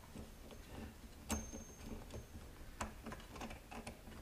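Light clicks and taps of hands handling the wheel mount of a Tecomec chain grinder while changing its grinding wheel. The sharpest click comes about a second in with a brief high metallic ring after it, and another sharp click comes near three seconds.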